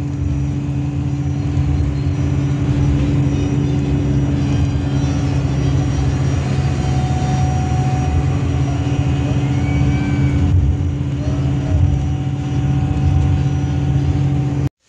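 A bus's engine and road noise heard from inside the cabin while it drives: a steady low drone with a constant hum.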